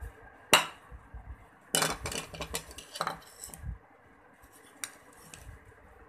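Metal spoon clinking and scraping against small bowls as a tablespoon of gram flour is scooped out: one sharp clink about half a second in, a quick run of clinks and scrapes from about two to four seconds in, and a lighter tap near the end.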